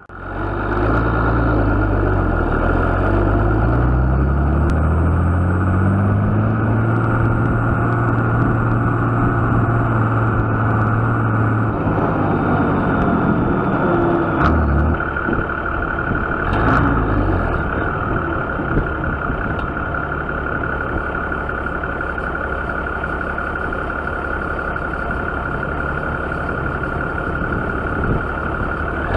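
Tractor diesel engine heard close up beside its exhaust stack, speeding up and slowing down with its pitch rising and falling for the first dozen seconds or so, then running steadily.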